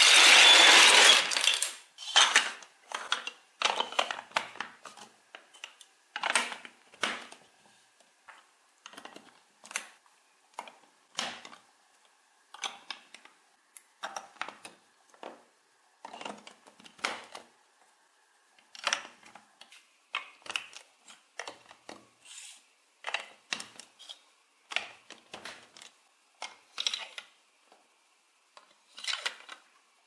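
Large plastic toy building bricks clattering as hands rummage through a heap of them, loudest in the first second and a half, then a long run of separate clicks and knocks as bricks are pressed together and pieces picked up and set down.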